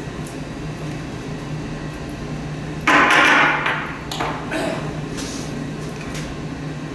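Tool and metal-part noise during a snowblower teardown: a loud, noisy burst lasting about a second, about three seconds in, followed by a few short clicks, over a steady low hum.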